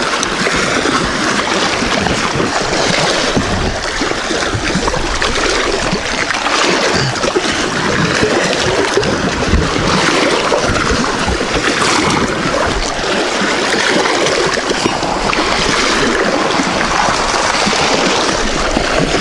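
Wind-driven waves splashing steadily at the water's edge, with wind rumbling on the microphone.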